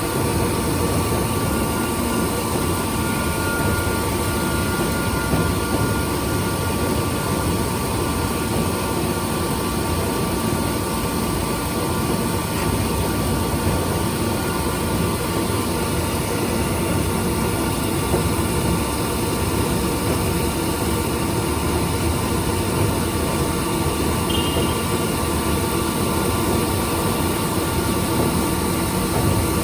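Milling machine running steadily while fine-milling A2 tool steel plate: a continuous even machine noise with a few steady whining tones.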